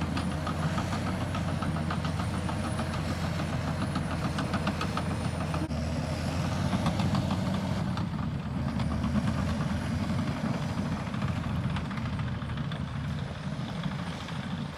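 Heavy road-construction machinery running, a steady low diesel engine drone with a rapid regular clatter of about four or five ticks a second through the first half.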